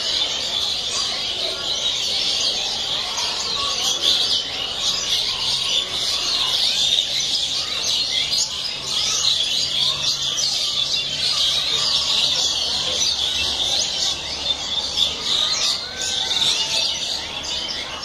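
A dense chorus of many birds chirping together: an unbroken tangle of quick, high-pitched chirps, with a few lower calls mixed in.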